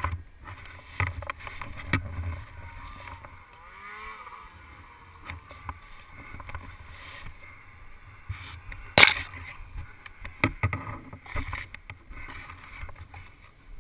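Camera handling noise among pine branches: rustling and scuffing with scattered knocks, the sharpest about nine seconds in, over a low rumble.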